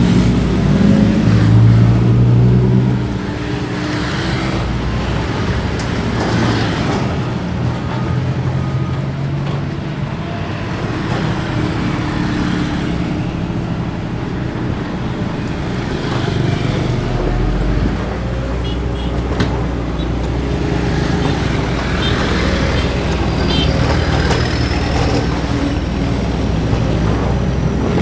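Doosan DX225LCA excavator's diesel engine running steadily under hydraulic working load, louder for the first few seconds and then holding an even level.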